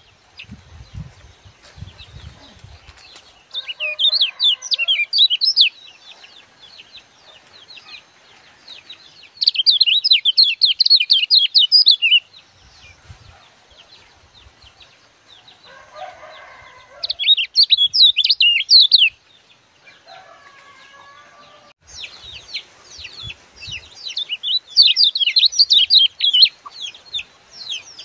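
A caged lemon-bellied white-eye (kecial kuning) singing in loud bursts of rapid, high twittering chatter, each burst two to three seconds long, with a longer, more continuous run near the end.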